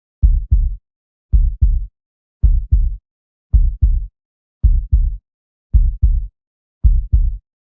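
Heartbeat sound: a steady lub-dub of paired low thumps, seven beats at roughly 55 a minute, with dead silence between beats.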